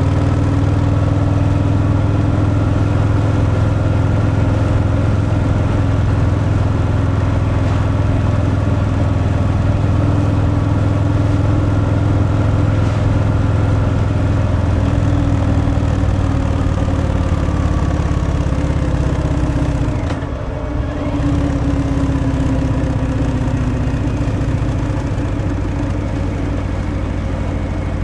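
Harley-Davidson Fat Boy's Milwaukee-Eight 114 V-twin running through its stock exhaust at a steady cruise. The engine note dips briefly about two-thirds of the way through, then picks up again.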